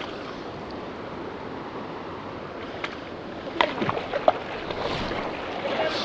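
Steady rush of river water, with a cluster of sharp clicks and knocks about three and a half seconds in and a louder swell of splashy noise near the end, as a trout is hooked on a fly rod.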